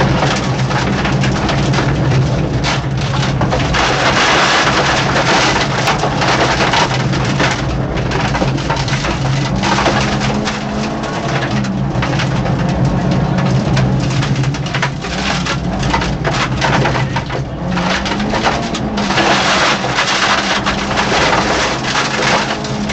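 Peugeot 205 rally car's 1.9-litre four-cylinder engine at stage pace, heard from inside the cabin, with the revs rising and falling a few times over loud, constant road and tyre noise.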